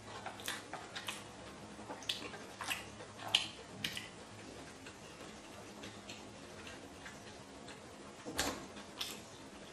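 A person chewing sushi close to the microphone: quiet, irregular wet mouth clicks and smacks, busiest in the first four seconds, with a louder click near the end.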